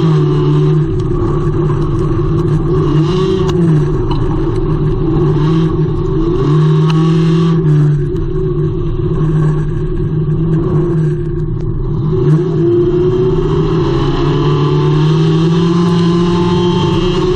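Engine of a front-wheel-drive Hornet-class dirt track race car, heard from inside its cockpit, running hard under racing load. Its pitch dips briefly and climbs again several times as the driver lifts off and gets back on the throttle.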